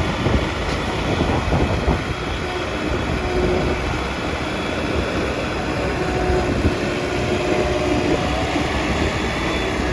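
Diesel earthmoving machinery running steadily under work, with a few short knocks about one and a half to two seconds in.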